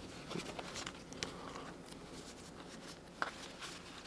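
Faint rustle and a few light ticks of trading cards being handled and fanned out in the hands, card edges sliding against each other.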